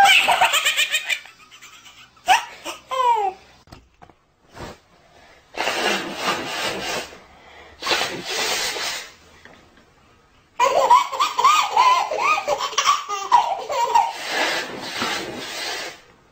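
A baby laughing in short bursts. After a pause come two breathy rushes of noise, then a long run of laughter.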